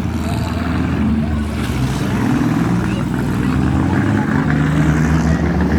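Demolition derby car engines running loudly and steadily, their pitch wavering a little as they are throttled.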